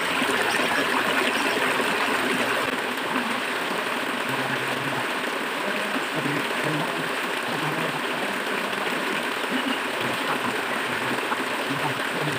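River water flowing steadily, a continuous even rush of moving water.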